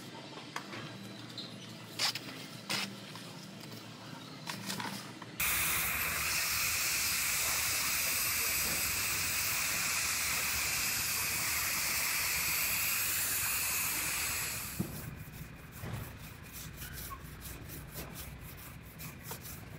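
Gravity-feed automotive spray gun spraying primer onto a car's quarter panel: a loud, steady air hiss that starts abruptly about five seconds in and stops about nine seconds later. Before it there are light crackles and ticks of masking tape being pressed on. After it come faint scraping and rubbing sounds of hands working the primed panel.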